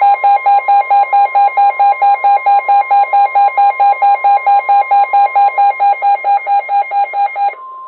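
Weather alert radio sounding its alarm: rapid beeping, about five beeps a second, over the steady 1050 Hz NOAA Weather Radio warning alarm tone. The beeping stops near the end while the steady tone runs on briefly. The tone signals that a warning, here a severe thunderstorm warning, is about to be read.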